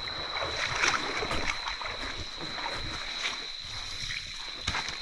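Water sloshing and splashing in a shallow stream as it is worked with a fishing net, with scattered small knocks and a steady high-pitched tone running throughout.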